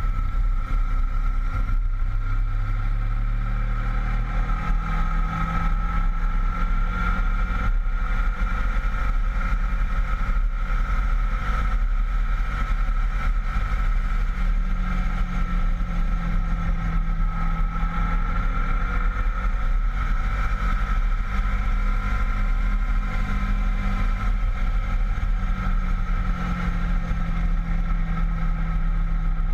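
Honda VFR800 V-Tec's V4 engine running under way, heard from on board the moving motorcycle with a heavy low wind rumble. The engine note shifts in pitch a few times as the revs change.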